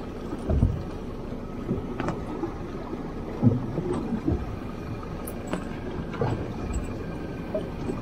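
Small waves lapping against the hull of a drifting fiberglass boat, with wind on the microphone and a few irregular low thumps.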